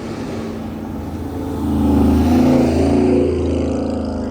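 A car engine revs up about a second and a half in, then eases back down.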